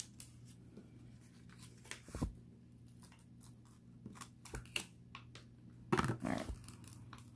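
Paper cover being peeled off the sticky adhesive of a diamond painting canvas and worked loose with tweezers: quiet crinkling, small clicks and tearing sounds, with louder rustles about two seconds in and about six seconds in. The cover paper is tearing as it comes away.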